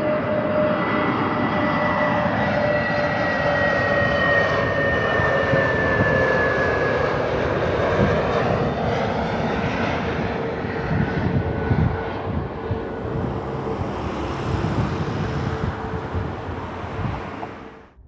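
Airbus A321neo prototype jet airliner flying past on its landing approach. Its engines give a high whine that slowly falls in pitch over a broad rumble, which turns rougher later on. The sound cuts off abruptly near the end.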